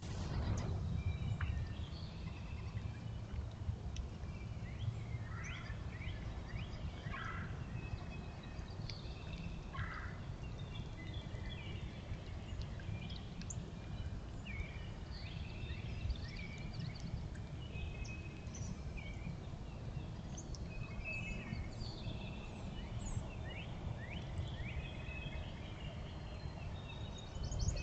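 Many birds calling: a busy run of short chirps and rising whistles, with two louder, lower calls about seven and ten seconds in, over a steady low rumble.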